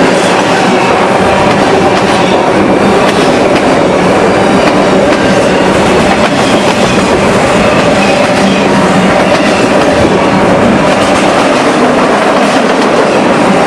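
Freight cars of a Union Pacific manifest train rolling past at close range, their wheels running on the rails in a steady, loud rumble.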